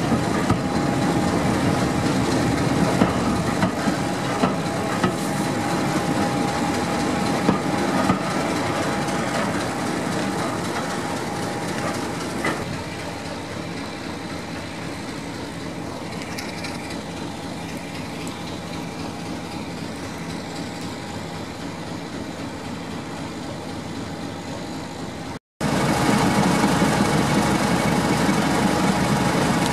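Coaches of a departing train rolling past, wheels clicking over the rail joints, the sound fading away over the first dozen seconds to a steady distant hum. After an abrupt cut near the end, a Class 31 diesel locomotive idling steadily.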